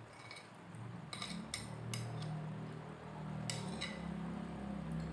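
Cutlery clinking against a plate and dishes: about six short, bright clinks, spread unevenly.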